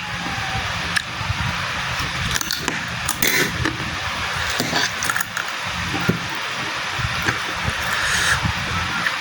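Close-up eating sounds: wet chewing and slurping of spicy fried rice vermicelli noodles, with scattered small mouth clicks.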